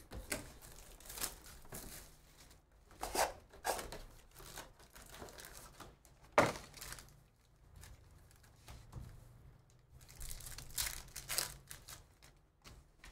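Panini Phoenix football trading-card packs torn open by hand: the plastic wrappers crinkle and tear in irregular bursts, and the loudest is a sharp rip about six seconds in.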